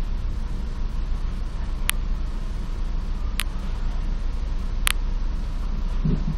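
Steady low hum inside a standing EN57 electric multiple unit, with three short, sharp sounds evenly spaced about a second and a half apart.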